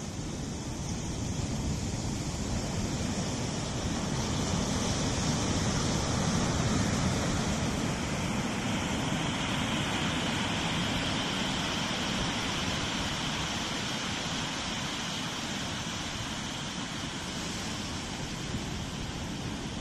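Low Atlantic surf breaking and washing up a flat sandy beach as a steady rushing noise. It swells to its loudest about six seconds in, then eases off.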